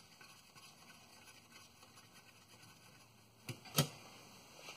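Quiet handling with two sharp clicks about a third of a second apart near the end, from transmission pan bolts being started by hand.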